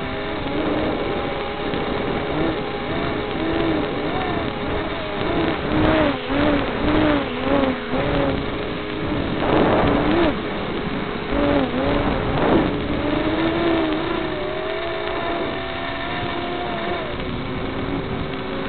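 Micro quadcopter's small brushed motors whining, pitch rising and falling rapidly with the throttle as the quad wobbles, heard through the FPV camera's low-quality audio. Several louder gusts of wind noise come in the middle.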